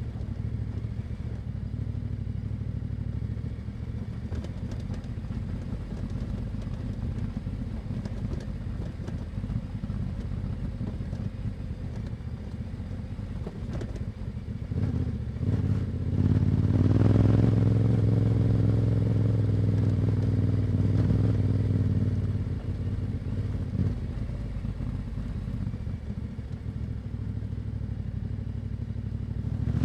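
Yamaha Ténéré 700's parallel-twin engine through an Akrapovič exhaust, running steadily on the move. About halfway through it opens up, rising in pitch and getting louder, holds there for several seconds, then eases back to a lower, steady note.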